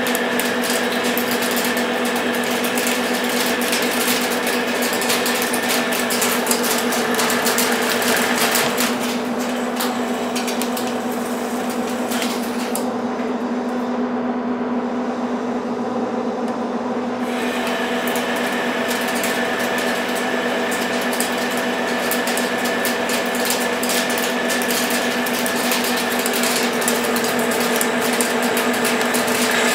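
Metal lathe boring out a spinning nut blank with a boring bar: the steady gear hum and whine of the lathe under a continual crackle of the cut. About a third of the way in the cutting noise and the higher whine fall away for several seconds, leaving the lathe's hum, then the cut resumes.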